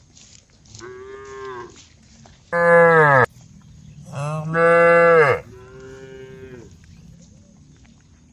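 Cows mooing: four calls, the middle two loud and deeper, their pitch falling at the end.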